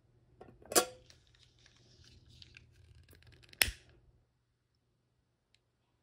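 Utility lighter being worked at a jar candle: two sharp clicks about three seconds apart with a soft hiss between them.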